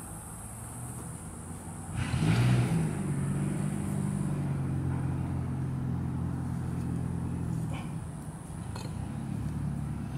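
A motor engine running at a steady pitch. It comes in louder about two seconds in and then runs on evenly.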